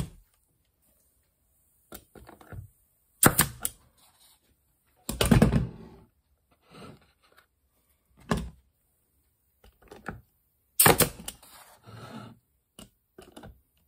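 Pneumatic stapler firing, a series of separate sharp snaps and thunks with softer knocks between them. The air pressure is running out because the compressor has been switched off, so the staples are not driving fully home.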